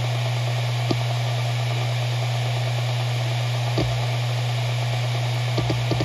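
Maxtor MaXLine Pro 500 7200 rpm hard drive spinning with a steady hum. A single head-seek tick comes about a second in and another near four seconds, and a quick run of seek ticks starts near the end.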